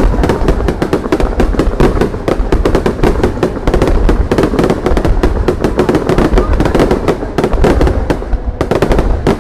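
Fireworks display going off in a loud, dense barrage of bangs and crackles, many reports a second, thinning briefly near the end.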